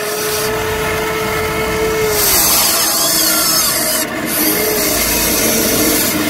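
Motors of a Huina RC excavator whining as the arm lowers and the bucket scoops mud, with a steady tone for the first two seconds, then changing pitch and a harsher grinding hiss.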